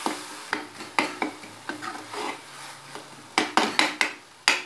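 A spatula scraping and knocking against a metal kadai as onion masala is stirred and fried, irregular knocks with a quick run of several more near the end.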